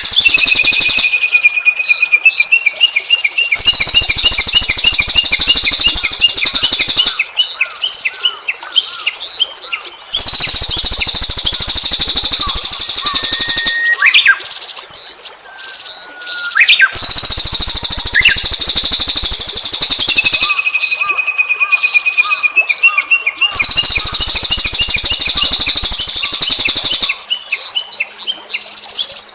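Small songbirds' rapid, harsh song played as a bird-lure recording: loud buzzy trills of about three seconds at a time alternate with quick runs of thin whistled notes, the pattern coming round again and again.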